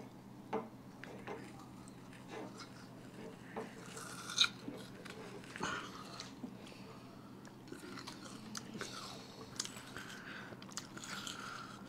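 Several people biting and chewing raw amla (Indian gooseberries) close to the microphone, with scattered crisp crunches of the firm fruit, the loudest about four seconds in.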